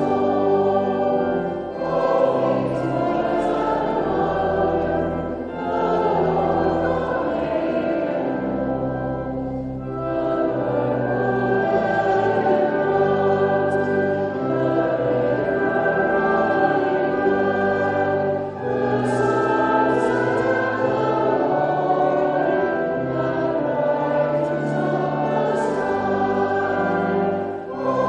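Choir singing in long held phrases, several voices in harmony, with short breaks between phrases.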